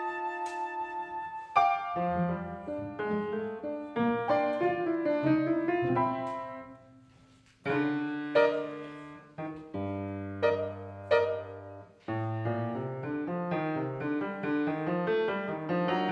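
Classical piano music played in short concert excerpts, each note striking sharply and dying away. The music fades out about seven seconds in and cuts to another passage, with a second cut about twelve seconds in.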